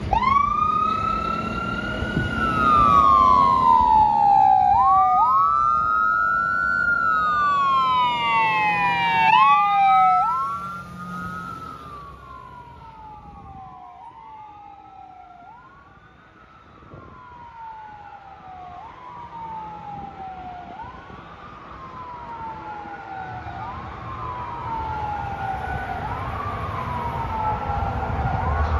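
Fire engine siren wailing, rising quickly and falling off in repeating cycles about every two and a half seconds, over the low rumble of the truck's engine as it pulls out. After about ten seconds the siren fades as the truck drives away, then swells again near the end.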